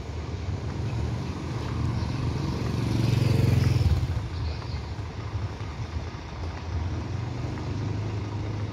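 Motorbike engine running steadily while riding, heard from on the bike, a low hum with road noise that swells louder for about a second around three seconds in.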